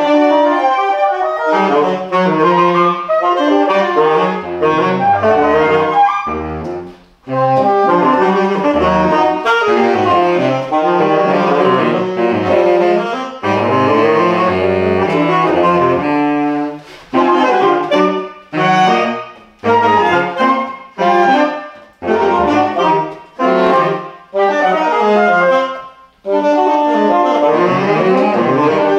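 Saxophone quartet of soprano, alto, tenor and baritone saxophones playing together in close harmony, in a jazz-flavoured idiom. It breaks off briefly about seven seconds in, and in the second half plays short punchy phrases separated by brief gaps.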